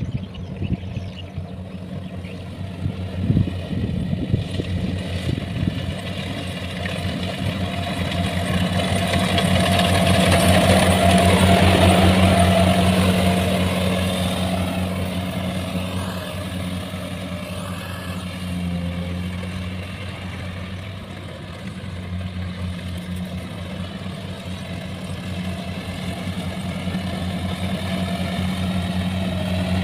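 Kubota rice combine harvester's diesel engine running steadily as it cuts rice, a steady low hum that grows louder about ten seconds in as the machine comes close, then eases off.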